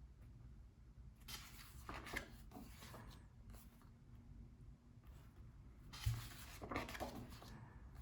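Book pages being turned: faint paper rustling, once about a second and a half in and again about six seconds in, the second turn with a soft low thump.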